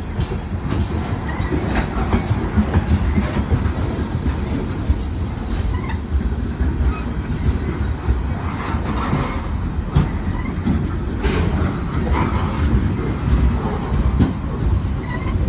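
Norfolk Southern train rolling past close by: a steady, loud low rumble with irregular clicks of the wheels over rail joints. No horn sounds.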